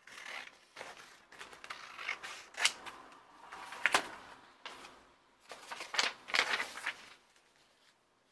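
Scissors snipping through a sheet of patterned paper, with the paper rustling and crackling as it is cut and handled, and a few sharp snips along the way.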